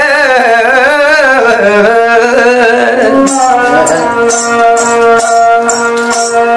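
A man singing a wavering, heavily ornamented folk melody over a bowed ravanahatha. About three seconds in, the voice drops out and the ravanahatha carries on with steady held notes, while the bells on its bow jingle with each stroke.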